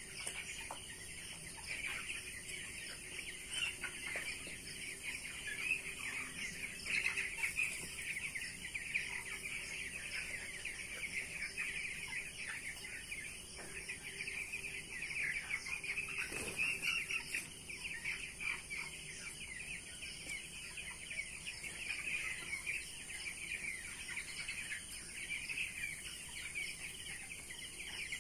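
A flock of young broiler chickens peeping together in a continuous chorus of many overlapping high chirps.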